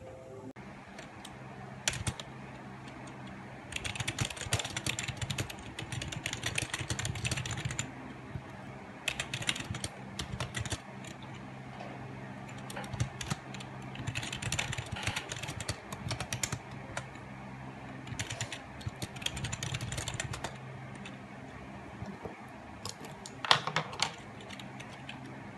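Typing on a backlit computer keyboard: several bursts of rapid key clicks with short pauses between them, over a steady low hum.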